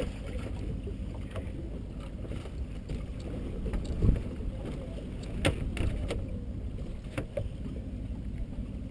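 Steady low rumble of a small fishing boat on the water, with a dull thump about four seconds in and a few sharp clicks over the next few seconds while a fishing rod and reel are handled.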